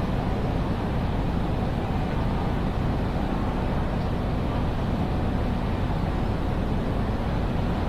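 Steady background noise of a large railway station hall: an even low rumble with no distinct events.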